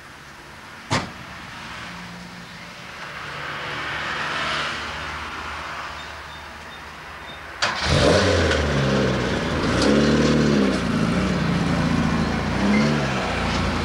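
A sharp click about a second in. Then, about eight seconds in, a car engine suddenly starts and is revved up and down several times.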